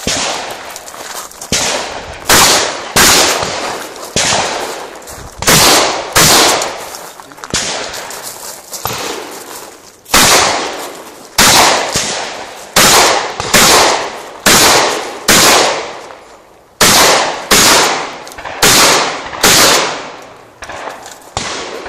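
Shotgun being fired again and again, about twenty loud shots at a steady pace of roughly one every half second to second, with a few short pauses, each shot trailing off in a brief echo.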